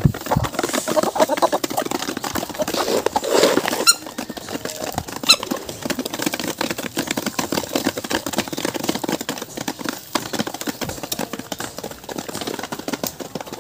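Laying hens pecking layer feed from a wooden trough: a dense, uneven run of quick beak taps on the wood.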